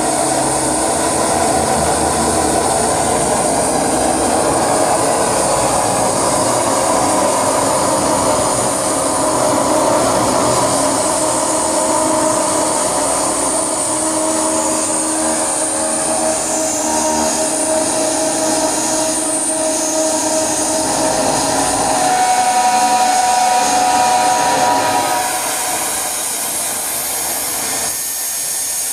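Live electronic noise drone from a tabletop rig of patch-cabled electronics and effects: a thick, rumbling wash of noise with steady tones held inside it and hiss on top. A few seconds before the end the low rumble drops away and it thins out, a little quieter.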